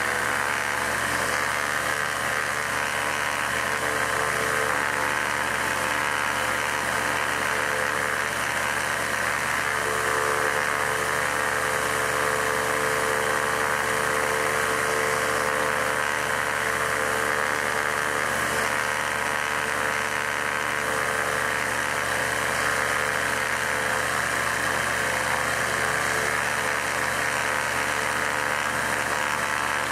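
Rotax 912iS Sport fuel-injected flat-four aircraft engine idling steadily on the ground with its propeller turning and its top cowling off.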